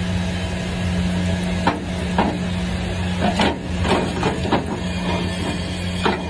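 A steady machine hum with a constant noisy hiss over it, and faint voices about two to four seconds in.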